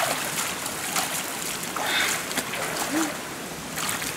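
Shallow stream water splashing irregularly as bare feet wade through it and hands scoop in the water, over the steady wash of running water.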